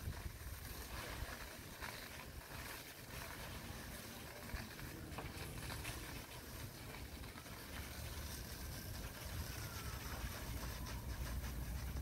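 Fire apparatus engines and pumps running steadily, a low rumble under a continuous hiss, with the rumble growing a little stronger over the last few seconds. A faint tone slides down and back up near the end.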